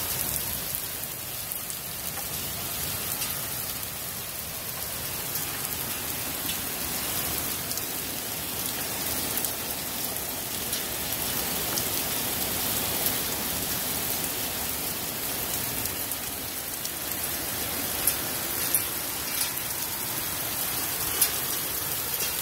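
Hailstorm: hail and rain pelting down in a steady, dense hiss of many small impacts, with a few sharper, louder hits later on.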